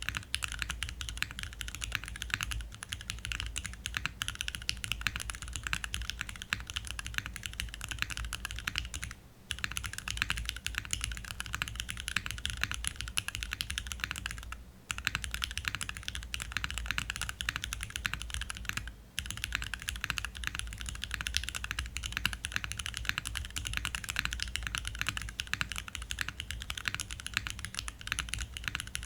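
Continuous fast typing on an O-ring mounted Tofu60 Redux mechanical keyboard with Cherry MX2A Black linear switches, fitted with 62.5 g springs and switch films, and GMK doubleshot ABS keycaps, with a plate of aluminium and no foam. A dense run of keystroke clicks, broken by three brief pauses.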